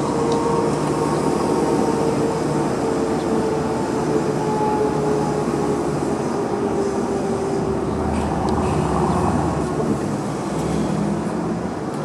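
Odakyu Line electric commuter train running through a level crossing: a steady rumble of wheels on rails, with steady tones over it that die away about two-thirds of the way through as the train clears.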